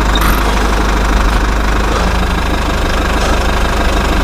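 A steady engine running sound, a loud, even low rumble with no change in speed.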